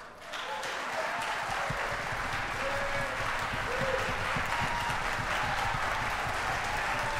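Audience applause breaking out after the final note of a concerto, rising within the first half second and then going on steadily.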